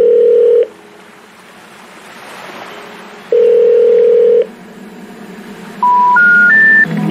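Telephone tones: two long, steady, low beeps about three seconds apart, then three short beeps stepping up in pitch, like the tone before a 'number not in service' recording.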